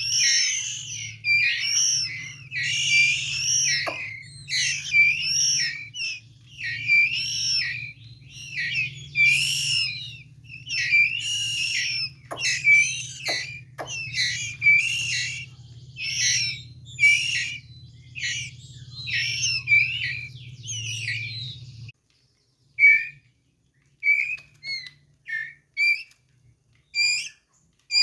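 White-rumped shama (murai batu) chick calling over and over in short, high whistled notes, one or two a second. A low hum underneath stops suddenly near the end, and the calls then come more sparsely.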